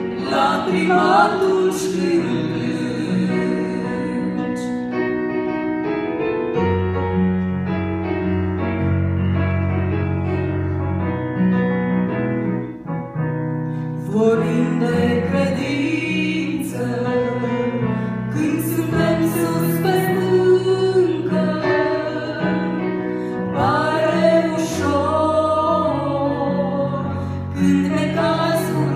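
Two women singing a gospel song together into microphones, with vibrato on held notes, over a keyboard accompaniment of sustained low notes.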